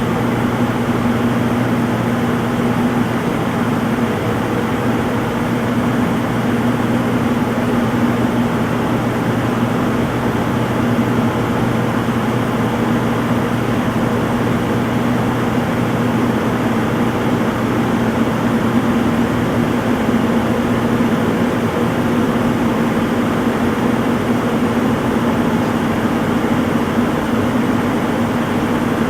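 Front-load washing machine spinning at speed: a steady whirring hum that holds its pitch throughout.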